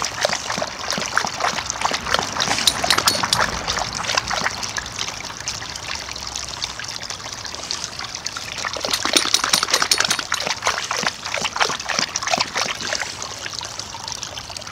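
Garden hose running into a plastic dog water bowl, the water trickling and splashing as the bowl fills, with dogs lapping from it. The water gets louder for a couple of seconds about nine seconds in.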